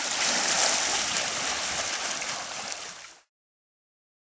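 Kayak paddle strokes splashing hard and water churning around the hull during a canoe polo sprint start. The sound fades and cuts off about three seconds in.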